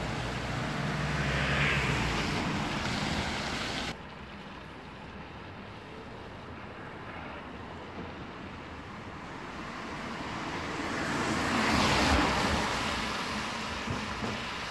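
Steady low drone of a First Potteries Scania OmniCity bus engine and road noise heard on board, cut off abruptly about four seconds in. Then a quieter street, with a car passing that swells and fades around twelve seconds.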